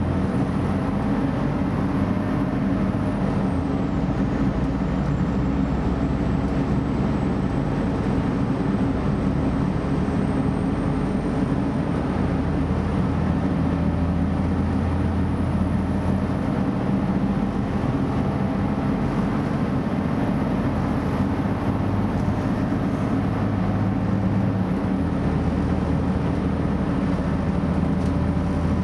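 PESA Link (DB class 633) diesel multiple unit running at speed, heard from inside: a steady engine drone and running noise. A faint high whine climbs slowly and drops back, once near the start and again near the end.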